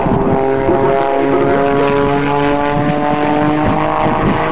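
Pitts aerobatic biplane's piston engine and propeller heard from the ground, a steady engine note with many even overtones.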